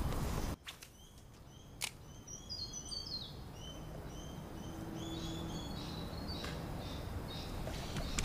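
Birds chirping in the creekside trees: many short, high repeated notes, with a quick falling run of notes about two to three seconds in. A low rumbling noise cuts off suddenly about half a second in, and there is a single sharp click just before two seconds.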